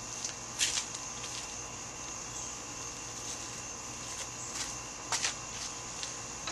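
A few short, sharp metallic clicks and clinks from hand work on an engine hanging from a chain on an engine hoist, a couple about half a second in and a pair just after five seconds, over a steady high-pitched background drone.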